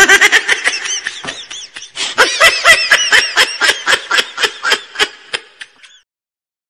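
Laughter sound effect: a fast run of rhythmic high-pitched 'ha-ha' pulses that starts abruptly, then thins out and stops about a second before the end.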